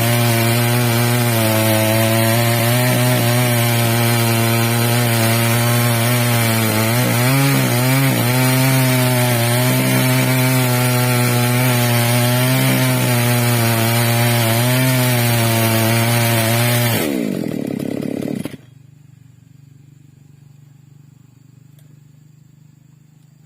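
Two-stroke chainsaw on a chainsaw mill running at high revs while ripping a log lengthwise into boards, its pitch wavering briefly as the load changes. Near the end the revs fall and the saw stops, leaving only quiet background.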